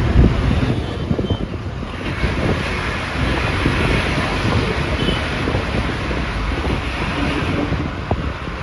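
A moving bus heard from inside: steady engine and road rumble with wind buffeting the microphone.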